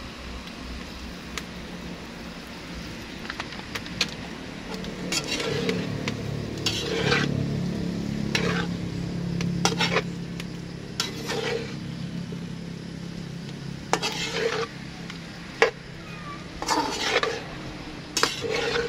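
Metal slotted spatula stirring and tossing green beans and pork in a metal wok over a steady sizzle. Scraping strokes come every second or two from about five seconds in, with a few sharp taps of the spatula against the pan.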